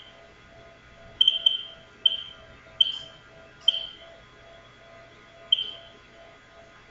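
Silent Knight 5204 fire alarm control panel keypad giving short high beeps at uneven intervals as its buttons are pressed to reset the panel, over a faint lower tone pulsing about two to three times a second.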